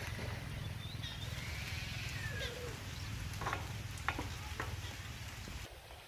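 Parakeet calls: one arching call that rises and falls, about a second and a half in, followed by a few sharp clicks. Under them runs a steady low rumble that stops just before the end.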